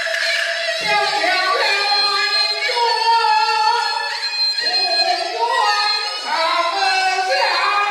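Peking opera singing by a painted-face (jing) role performer, the voice sliding up and down in pitch through a sung line, with instrumental accompaniment.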